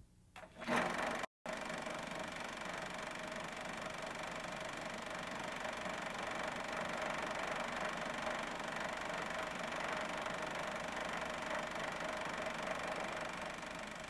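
Film projector running with a steady mechanical whir and a constant hum. It starts about a second in, after a short burst and a brief dropout.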